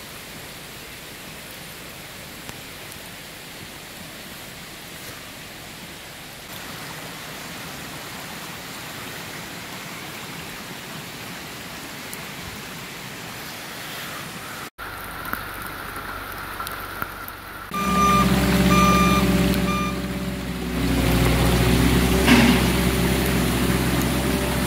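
Steady noise of rain and runoff water running. After a cut, about three quarters of the way in, a skid-steer loader and a dump truck start working with their engines running loudly, and a reversing alarm beeps for a couple of seconds.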